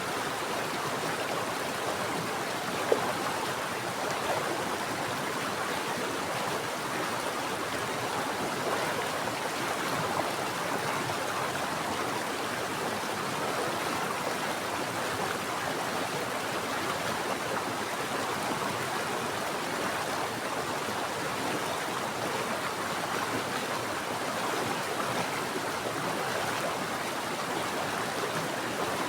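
Mountain stream flowing steadily: a continuous, even rush of running water, with one brief louder splash about three seconds in.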